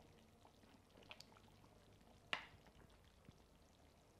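Near silence: a metal ladle moving through thick chile sauce in a clay pot, with a few faint clicks and one sharper click a little over two seconds in.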